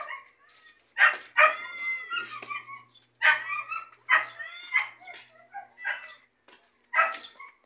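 Dogs barking and yipping in short bursts, roughly once a second.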